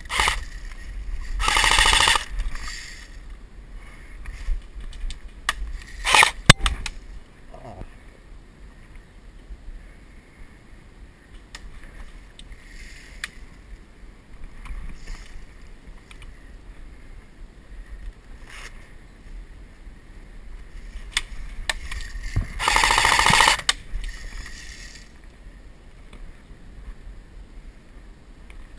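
Brushing and rustling noise close to a head-mounted action camera as the player shifts behind cover, with two louder bursts and a few sharp clicks and knocks about six seconds in.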